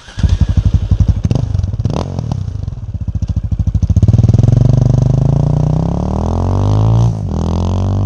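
Single-cylinder four-stroke engine of a 2002 KTM LC4 640 Duke II with an Akrapovic exhaust, thumping unevenly at low revs with a couple of quick blips as the bike sets off. It then accelerates away with the pitch climbing steadily, dips briefly at a gear change near the end, and climbs again.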